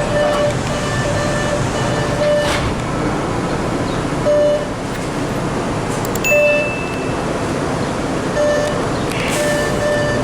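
Electronic beeps inside a CRRC Orange Line subway car: a short mid-pitched tone repeating about every two seconds, with one higher single chime a little past the middle, over the steady hum of the car.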